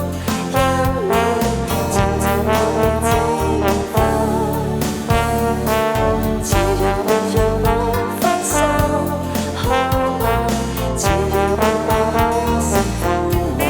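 Instrumental pop music: a sustained lead melody with vibrato, carried over bass and a steady drum beat.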